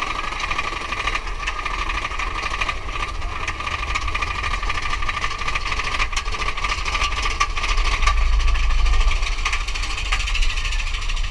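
Big Thunder Mountain Railroad mine-train coaster running on its track: a continuous rapid clatter of wheels on the rails with a steady metallic whine over a low rumble, which gets louder about eight seconds in.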